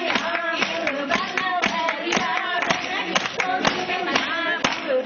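Women singing Punjabi boliyan in a group, keeping time with steady rhythmic hand clapping at about two claps a second.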